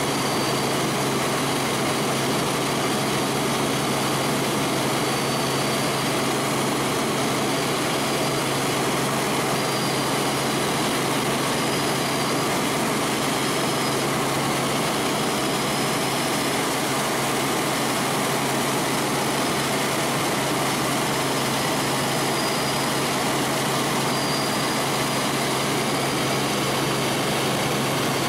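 Helicopter in steady flight, heard from inside the cabin: constant engine and rotor noise with a steady low hum and a faint high whine that comes and goes.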